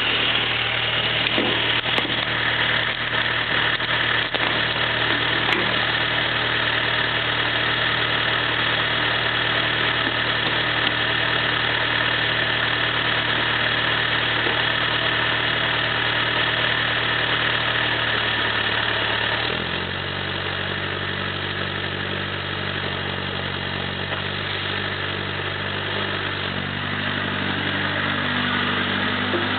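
Diesel engine of a CAMS 224S mini excavator running steadily, its engine note shifting about two-thirds of the way through and again near the end.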